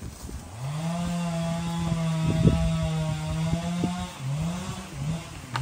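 A chainsaw revs up about half a second in and holds at high speed for about three and a half seconds. The throttle is then let off and blipped a few quick times near the end.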